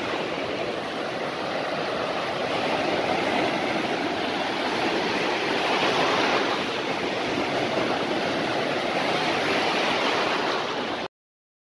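Waves breaking and foaming in shallow surf: a steady rush of water that swells about six seconds in, then cuts off suddenly near the end.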